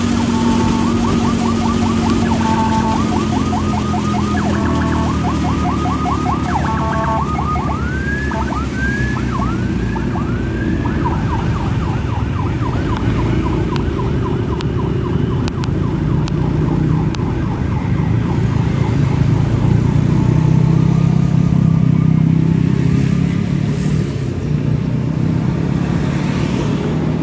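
Emergency siren switching between patterns: a rapid yelp, then a run of short rising whoops, then a fast warble that fades out about two-thirds of the way through. A scooter engine and road noise run underneath and swell near the end.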